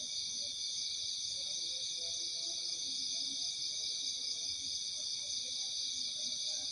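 A dense night chorus of crickets and other insects trilling steadily in several high-pitched layers, with faint, scattered low calls underneath.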